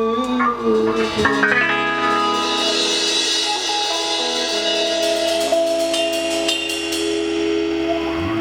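Live band music: long sustained chords with a guitar-like, effect-laden tone, the chord changing about a second in and then held.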